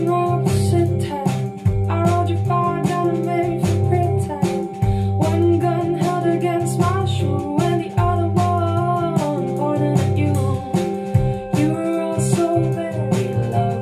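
A song played back over a hi-fi system's loudspeakers: plucked guitar over a repeating bass line, with a singing voice.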